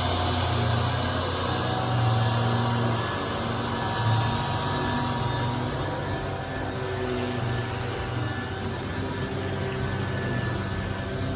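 Power sander running steadily against the car's steel roof panel, a continuous whirring hum with a broad hiss.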